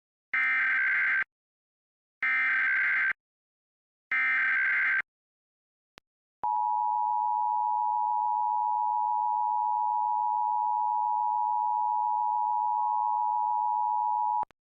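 Emergency Alert System test alert: three one-second bursts of SAME digital header data about two seconds apart. After a short pause comes the steady two-tone EAS attention signal, held for about eight seconds and cutting off sharply.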